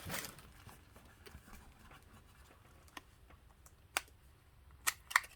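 Hands handling skincare products and packaging in a box: quiet rustling with a few sharp, light clicks and taps in the second half.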